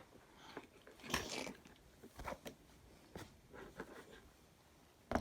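Freshly set toy slime being stirred and kneaded with a stick: soft, irregular squelches and light clicks of the stick against the container, a few strokes about a second apart.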